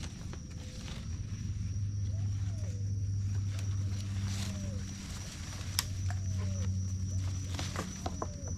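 Wild forest animals calling: a low droning chorus that swells twice, over a steady high insect whine, with short falling bird calls and a few sharp clicks near the end.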